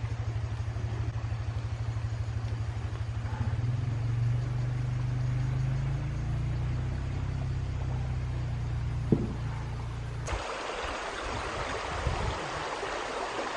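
A motor engine idling steadily as a low, evenly pulsing hum. About ten seconds in it cuts off suddenly and the rush of a flowing river takes over.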